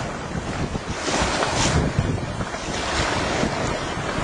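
Wind gusting over the microphone and choppy water rushing along the hull of a Contessa 26 sailboat heeled under sail, with a louder rush about a second in.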